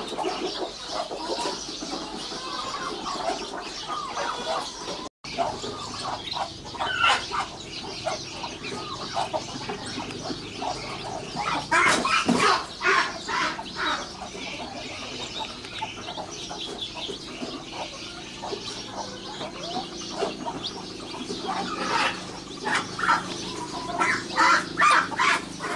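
Thai fighting-chicken hen clucking and her five-day-old chicks peeping as they forage, in clusters of quick short calls, busiest about twelve seconds in and again near the end. The sound cuts out completely for a moment about five seconds in.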